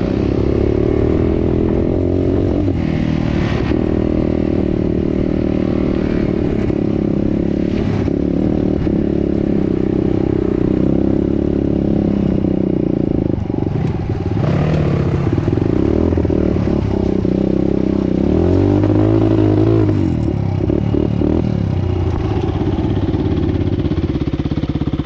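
Dirt bike engine heard up close from the rider's own helmet, running at low trail speed with the throttle opening and closing, so the engine note rises and falls several times.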